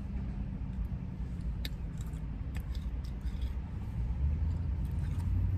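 Low, steady rumble of a car engine that grows louder about four seconds in, with a few faint light clicks over it.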